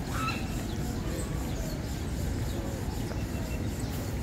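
Open-air lakeside ambience: a steady low background rumble with faint, scattered bird calls.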